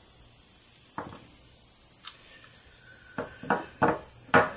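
A few sharp clicks and light knocks of small electronic parts, a circuit board and a small coil, being handled and set down on a wooden workbench, the loudest near the end, over a steady high hiss.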